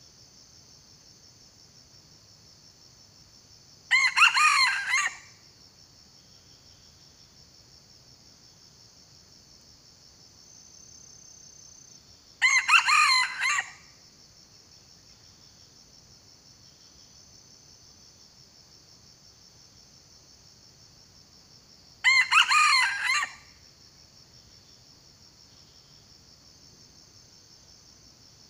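Junglefowl rooster crowing three times, each a short crow of about a second, roughly nine seconds apart, over a steady high insect drone.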